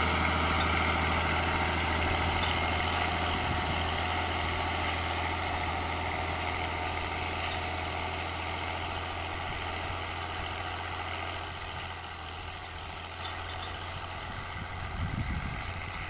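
Fiatagri 100/90 DT tractor's six-cylinder diesel engine running steadily, slowly growing fainter.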